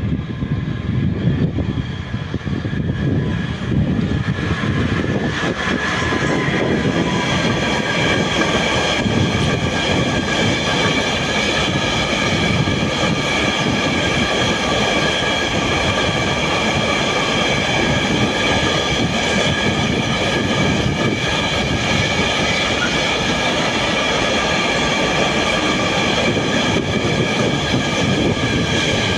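Freight train of Innofreight RockTainer ORE container wagons rolling past, a steady rumble of steel wheels on rail. From about six seconds in, several steady high-pitched squealing tones from the running gear sit over it.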